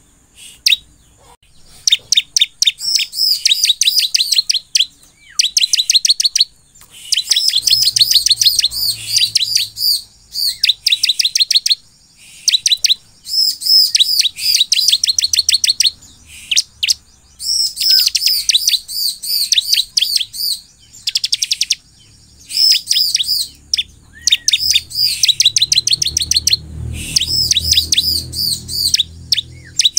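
Bar-winged prinia (ciblek) in full song: phrase after phrase of fast, repeated high chirps, each run lasting a second or two with brief pauses between.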